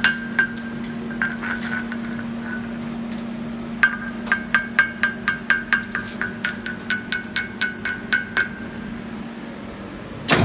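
Steel chipping hammer striking slag off an E7018 stick-weld bead on steel pipe, with sharp ringing metallic taps. A few scattered strikes come first, then a quick even run of about four to five strikes a second for some four seconds. A steady low hum sits underneath, and there is one loud dull thump near the end.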